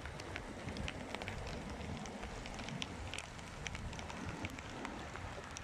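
Rain falling, with many separate drops ticking close by over a steady low rumble.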